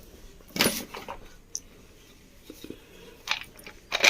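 Handling noises from the opened instant water heater: a few short crunchy scrapes and clicks as its plastic housing and scaled parts are moved, the loudest under a second in and another near the end.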